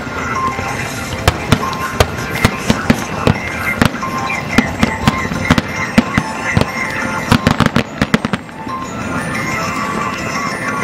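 Fireworks shells bursting in a string of sharp bangs, with a rapid salvo of cracks about seven to eight seconds in, over music playing in the background.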